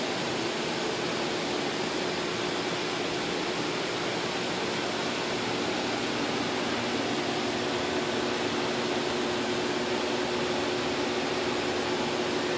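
Steady, even hiss with a faint constant hum underneath, like ventilation or fan noise. No engine running is heard.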